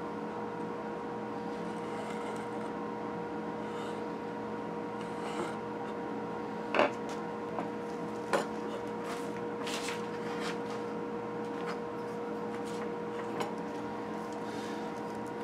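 Steady background hum, with two sharp knocks of wooden pieces and a marking gauge being set down on the workbench about seven and eight and a half seconds in, and soft rubbing of hands handling wood.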